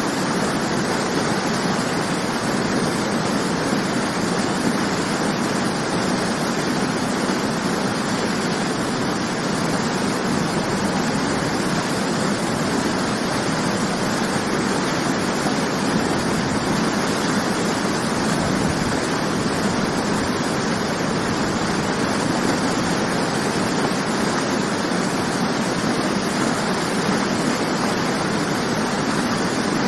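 Waterfall: a steady, even rush of falling water with no breaks or separate events.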